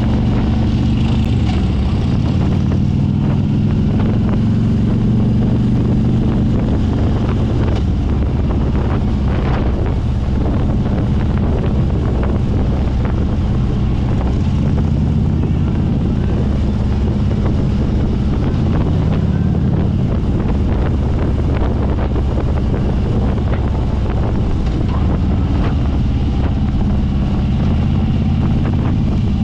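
Harley-Davidson motorcycle engine running steadily at riding speed, heard from the rider's own bike, with wind buffeting the microphone.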